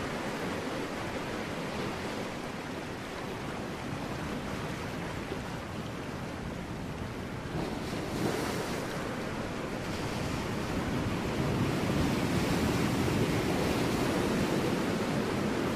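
Ocean waves breaking on rocks: a continuous wash of surf, with a wave crashing about halfway through and the surf growing louder in the second half.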